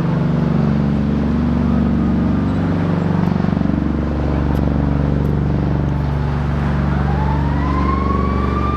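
Bell Boeing V-22 Osprey's proprotors and turboshaft engines running loudly at vertical takeoff: a steady deep drone whose pitch shifts slightly. About seven seconds in, a siren starts up, rising in pitch and then holding.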